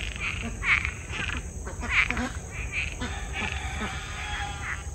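A chorus of frogs calling after heavy rain and flooding, loud overlapping calls repeating about every half second to a second, with a pulsed trill in the second half.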